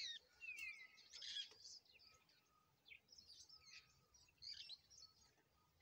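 Faint chirping of small birds: scattered short chirps throughout, with a falling whistle about half a second in.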